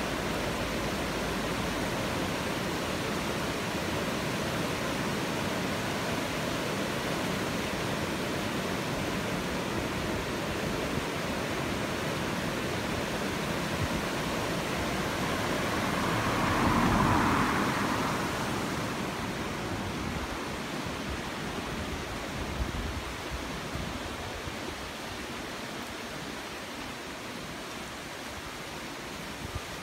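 Floodwater of a high river rushing over a weir: a steady, even rush of white water. It swells briefly louder about halfway through, then grows quieter over the last third.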